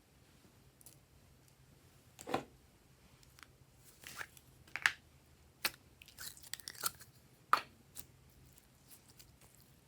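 Glossy slime being squeezed and stretched by hand, giving a dozen or so sharp, irregular clicks and pops, some in quick clusters.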